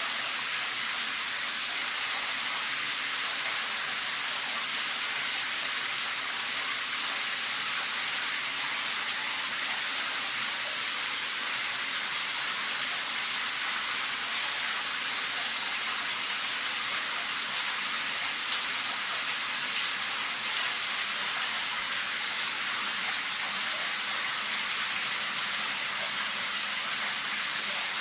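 Shower left running, water spraying and splashing in a steady even hiss that carries mostly in the high range.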